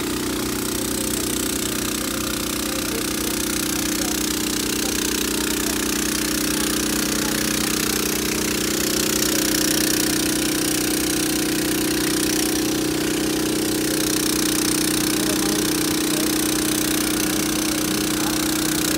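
Diesel engine of a water tanker truck running steadily as it pumps water through a hose to wash landslide mud off the road, a constant low hum with a broad hiss above it.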